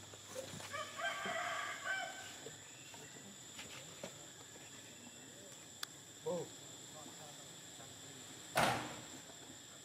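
A rooster crows once, about a second in, one call lasting just over a second. Near the end comes a brief, loud burst of noise, the loudest sound here.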